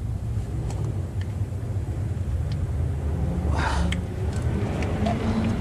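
Steady low rumble of auto repair shop background, with a few faint tool clicks and a short hiss about three and a half seconds in.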